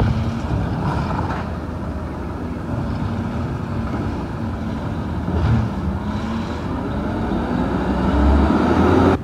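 Refuse truck's engine running steadily, then revving louder as it pulls ahead near the end.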